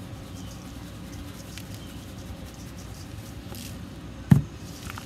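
Dry rub shaken from a plastic shaker jar onto raw chicken thighs in a stainless steel bowl: faint scattered ticks over a steady low hum, with one sharp thump a little over four seconds in.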